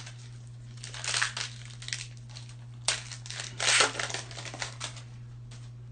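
A trading card pack wrapper crinkling and tearing as it is opened, with the cards handled, in several short rustling bursts over a steady low hum.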